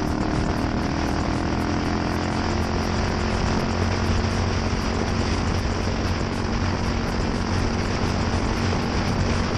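Yamaha SR400's single-cylinder four-stroke engine running through a NitroHeads aftermarket muffler, its pitch easing down a little over the first couple of seconds and then holding steady.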